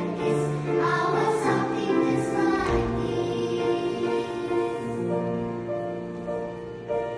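Choir singing in several parts, holding long chords that change every second or so and grow softer toward the end.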